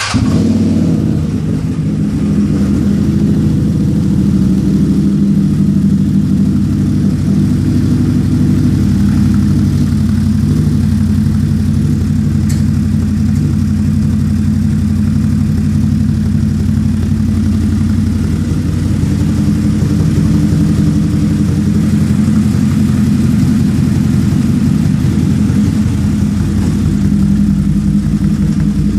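CFMoto Z-Force 800 side-by-side's 800 cc V-twin engine idling steadily through a Two Brothers slip-on exhaust, with a loud, deep tone.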